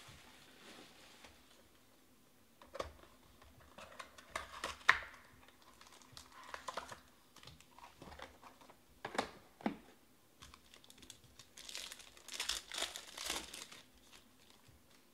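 Hands handling and opening a cardboard trading-card box, with scattered taps and clicks; the sharpest, about five seconds in, is the loudest. Near the end a wrapped card pack crinkles for a couple of seconds as it is pulled out and handled.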